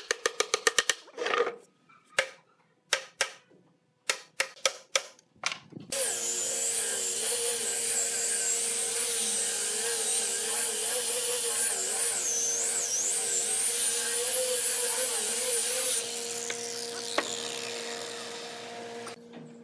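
A claw hammer tapping on a wooden tabletop: a quick run of light taps, then scattered single strikes. About six seconds in, an angle grinder with a sanding disc starts and runs steadily while sanding the wooden top, its high whine wavering with the pressure. It is switched off and winds down with a falling whine.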